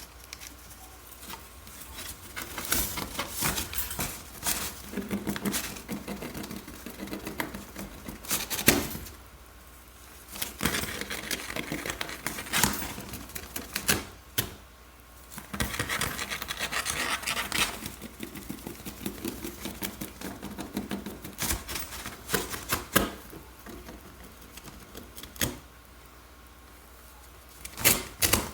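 Irregular spells of rapid clicking and scratching, with short sharp knocks here and there and quiet gaps between, in a small room.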